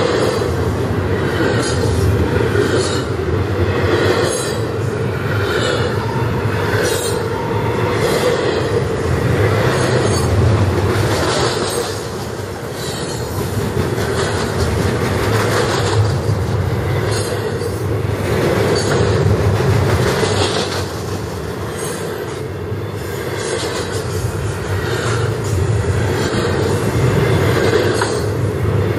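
Double-stack container well cars of a freight train rolling past close by: a steady rumble of steel wheels on rail with repeated clacks, about one a second, as the wheel sets run over the rail joints.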